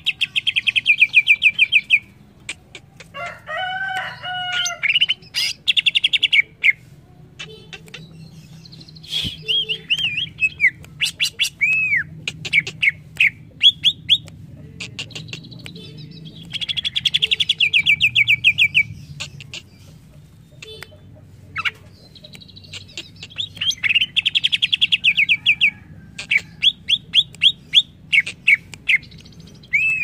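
Greater green leafbird (cucak ijo) singing: loud bouts of fast rattling trills of rapidly repeated high notes, broken by single sharp notes and falling whistles. A lower, rougher call comes about three to five seconds in.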